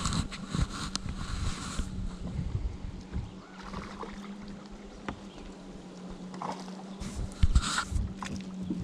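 Hooked fish splashing at the surface as it is reeled to the boat, in two spells: one at the start and a louder one about seven seconds in, as it is brought alongside to be landed by hand. Under it are a steady low hum and wind buffeting the microphone.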